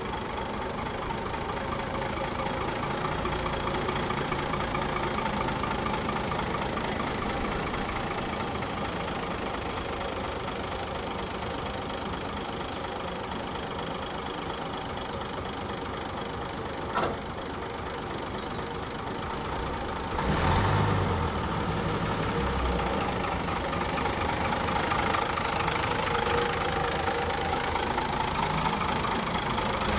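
Vintage coach's diesel engine idling steadily with a knocking beat. There is a short sharp click a little past halfway, and the engine grows louder soon after.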